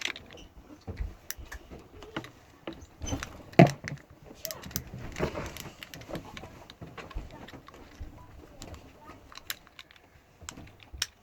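Plastic fidget cube being worked by hand: irregular small clicks of its buttons and switches, with one louder knock about three and a half seconds in.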